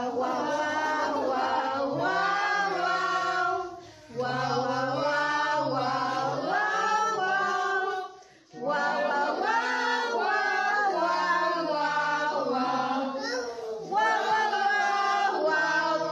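A group of voices singing a song together in long phrases, with short breaks about four and eight and a half seconds in.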